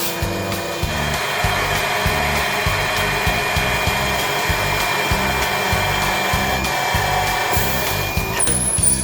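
Thermal friction-drilling machine working: the spinning friction drill rubs into metal with a steady whine and hiss from about a second in until shortly before the end, over background music with a steady low beat.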